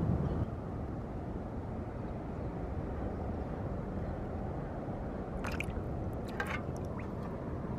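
Steady low rumble of wind on the microphone, with a few small water splashes and drips between about five and a half and seven seconds in.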